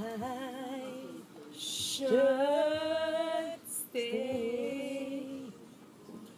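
A woman singing a slow melody with no instruments, in a few phrases with long held, wavering notes; the longest is held about a second and a half, from about two seconds in.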